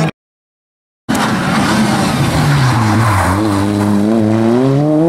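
Peugeot 106 rally car taking a bend: the engine note falls as the car slows into the corner, then climbs steadily as it accelerates away. The sound cuts out completely for about a second at the start.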